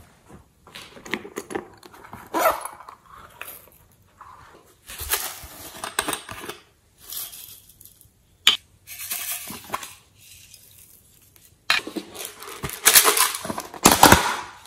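Plastic bottles and containers being handled over a slime tray: irregular rustling, tapping and shaking of plastic, with a sharp click about eight and a half seconds in. The loudest rustling and crackling comes near the end, as a plastic tub of clay is opened and handled.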